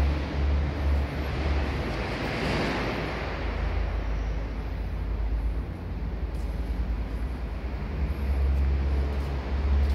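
A steel framing roll forming line runs with a steady low hum and machinery noise. A rushing hiss swells briefly about two to three seconds in.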